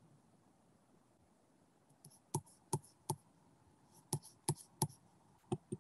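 Sharp light taps: a run of three about a third of a second apart, a second run of three, then two more near the end.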